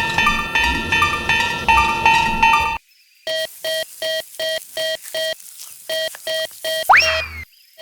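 A fast, music-like run of repeated bell tones, then after a brief break a Japanese railroad-crossing warning bell sounding an even ding-ding-ding at about three strikes a second. Near the end it is cut by a quick rising whoosh sweep, and the sound breaks off briefly.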